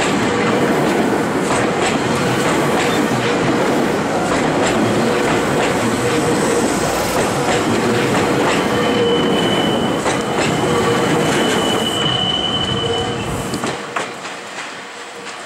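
Meitetsu 3700-series electric train passing close by: a steady rush of wheels on rail with clatter over the joints, and a high steady wheel squeal for several seconds past the middle. Near the end the sound falls quieter.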